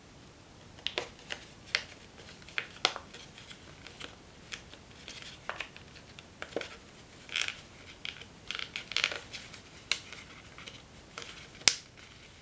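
Folded paper crackling and rustling as its layers are pulled apart and pressed into shape by hand, in scattered sharp crinkles and short rustles, with one sharper crack near the end.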